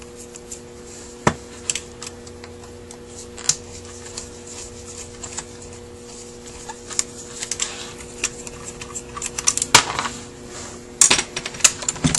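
Small metal clicks, taps and scrapes of a screwdriver and fingers working out the screws of a Rochester Quadrajet carburetor's choke pullback, scattered at first and busier near the end. A steady low hum in the background cuts off near the end.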